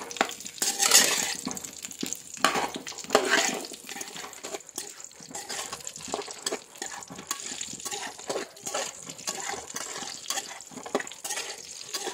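Metal spatula stirring and scraping whole lemons around a metal wok, with irregular scrapes and knocks over the sizzle of hot sesame oil, loudest about one and three seconds in. The lemons are being sautéed over medium flame until they give up their water.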